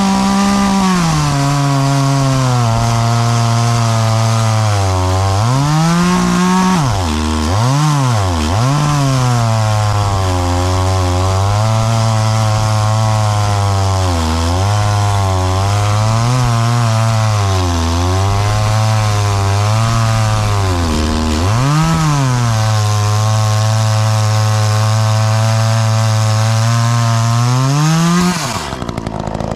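Chainsaw cutting through a log: the engine runs at high revs, then its speed sags and recovers again and again as the chain bites into the wood. It revs back up near the end and then falls away sharply.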